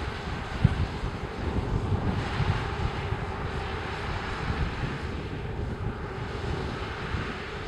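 Claas Lexion 600 combine harvester at work threshing wheat: its Caterpillar C18 diesel engine and threshing machinery give a steady, continuous drone with a heavy low rumble.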